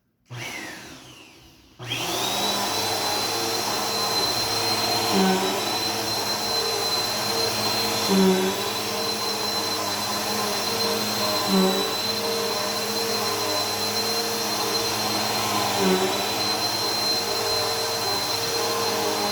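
A short sound fades out near the start. Then the motor of a Bissell PowerForce Helix upright vacuum cleaner switches on and runs steadily with a high whine, vacuuming. Its note swells briefly every three or four seconds.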